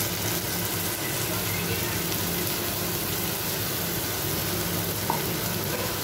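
Chopped mushrooms sizzling steadily in oil in a pan as mustard paste is stirred into them with a wooden spatula.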